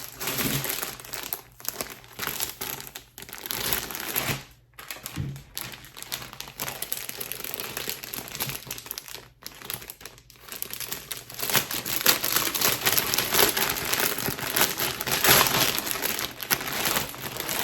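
Packaging crinkling and rustling as an item is unwrapped by hand, louder and busier in the last several seconds.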